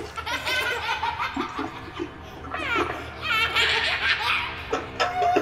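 A man laughing in a long, wavering laugh, with steady background music tones under it.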